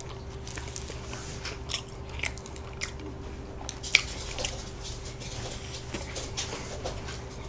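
Soboro bun, a sweet bread with a crumbly streusel topping, being torn and bitten into close to the microphone, then chewed: scattered soft crunches and mouth clicks, the sharpest about four seconds in. A faint steady hum runs underneath.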